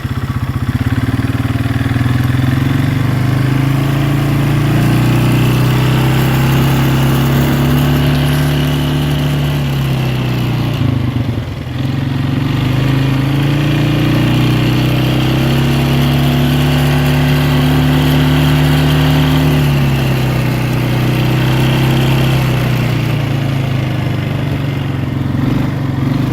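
Polaris four-wheeler ATV engine running while riding, its pitch rising and falling with the throttle, easing off briefly about eleven seconds in before picking up again.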